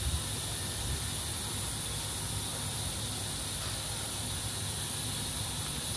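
Steady low hum and hiss of a powered-up shop machine and its surroundings, with no distinct events.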